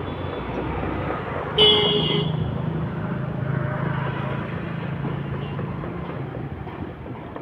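A vehicle horn gives one short toot about a second and a half in, over the low, steady rumble of road traffic.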